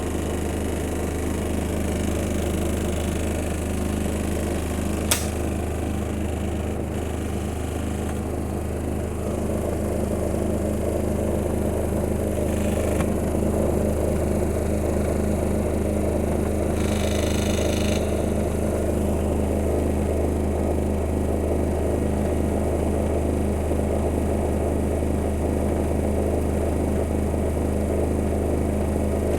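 Miele household appliance running with a steady low hum and mechanical whir, growing slightly louder about ten seconds in, with a single sharp click about five seconds in.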